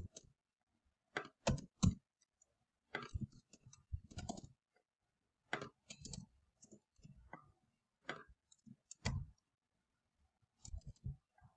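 Computer keyboard keys being typed in short, irregular bursts of clicks with pauses between them.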